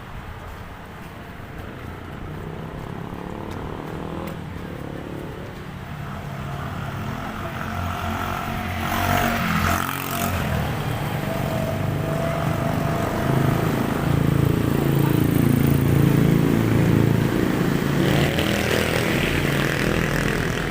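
A motor vehicle engine running close by, its pitch shifting and its sound growing louder through the second half.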